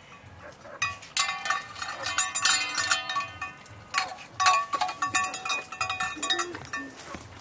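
Metal food bowls clinking and rattling as two dogs eat from them, knocking the bowls against the ground and each other. The ringing clatter starts about a second in, eases off briefly a little past the middle, then picks up again.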